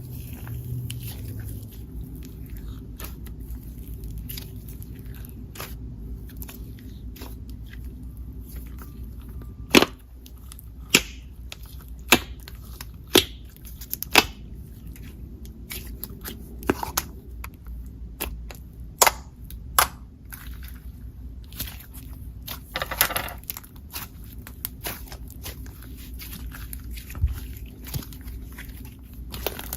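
Slime being pressed and poked by hand, giving sharp clicking pops and crackles. Five loud pops come about a second apart around the middle, and a longer crackly squish follows later.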